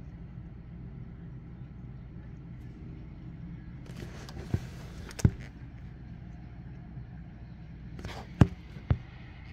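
Steady low wind rumble on the microphone. It is broken by sharp knocks in two pairs, one pair about four and a half seconds in and another near the end, each with a brief hiss.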